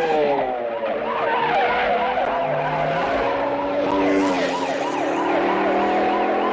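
A siren sounding in a fast yelp, its pitch sweeping up and down several times a second over a few steady held tones.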